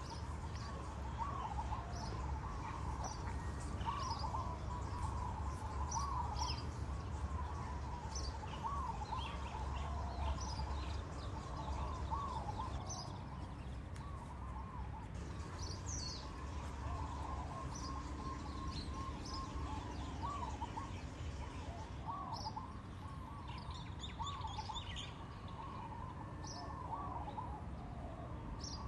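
Songbirds chirping, many short calls one after another throughout, over a steady low hum.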